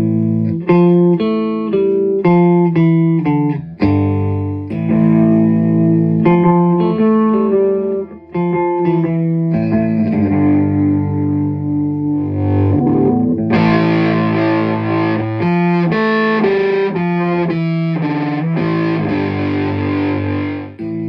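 Electric guitar played through a Fender '68 Deluxe Reverb amp: a run of rhythmic strummed chords and riffs. About two-thirds of the way through, the tone turns brighter and denser.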